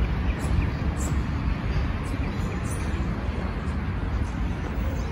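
Steady outdoor background noise, a low rumble heavy in the low end, with faint brief high chirps now and then.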